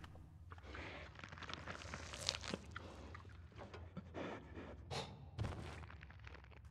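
Faint sound effects in a cave: a steady low rumble of ambience under scattered footsteps, crunches and scrapes on rock, with a stretch of denser rustling and scraping in the first half.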